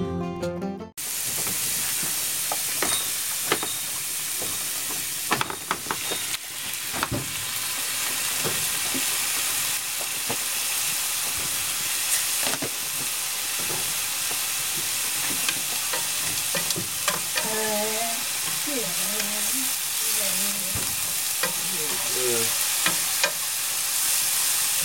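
Food sizzling as it is stir-fried in a cast-iron frying pan over a wood fire, with a steady hiss and a wooden spatula knocking and scraping against the pan now and then.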